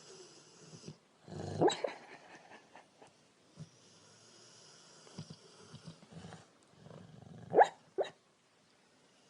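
Sleeping female Rottweiler dreaming, letting out muffled sleep noises: a low grunt that rises into a short yelp about a second and a half in, quiet breaths, then two short rising yips near the end, the first of them the loudest.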